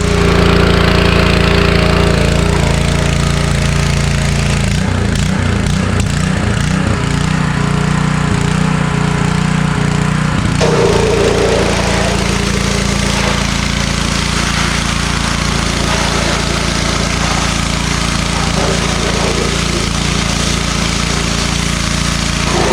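Pressure washer's small engine running steadily, with the hiss of its water spray over it. The engine note shifts about ten seconds in.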